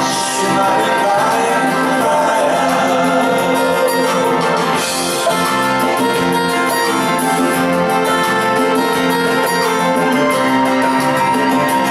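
Live pop band playing, with guitar to the fore and an even beat.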